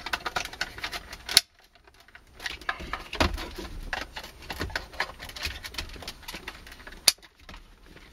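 Plastic clicking, tapping and scraping as a car's heater control unit is slid into its opening in the dash and pressed home, with a sharp click about a second and a half in and another near the end.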